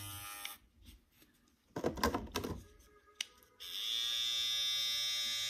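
Babyliss cordless hair clippers buzzing: one is switched off about half a second in, there is a brief rustle of handling and a click, and then one is switched on again about three and a half seconds in and runs with a steady, brighter buzz.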